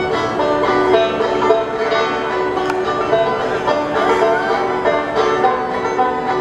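Bluegrass music with banjo playing.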